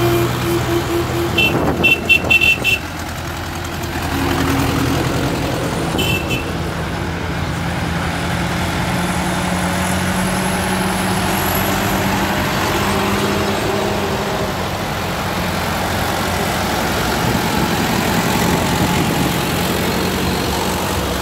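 Several farm tractors' diesel engines running steadily as they drive slowly past in a line. About two seconds in a horn gives a quick string of short toots, and one more short toot sounds around six seconds in.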